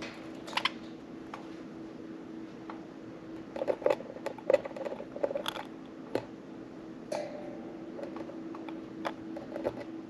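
Budgerigars preening: a scattering of sharp beak clicks and short soft nibbling sounds, busiest around four to five seconds in, over a steady low hum.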